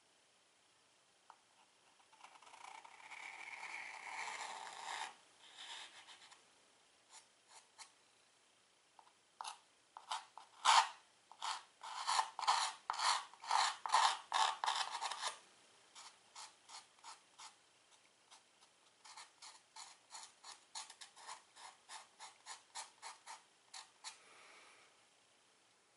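Stick of chalk scratching across a chalkboard: first one long continuous stroke, then runs of quick short strokes. The strokes are loudest and most rapid in the middle.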